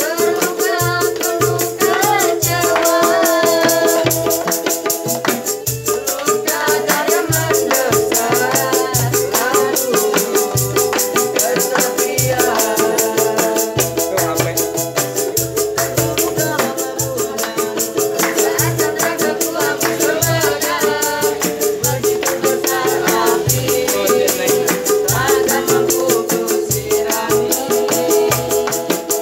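Street buskers performing a song: voices singing a wavering melody over strummed ukulele chords, with hand drums beating a steady rhythm and a tambourine jingling throughout.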